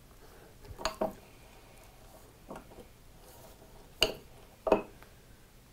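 A steel chisel and a microscope stand being handled and positioned on a wooden workbench. There are about five light clicks and knocks, the loudest two about four seconds in.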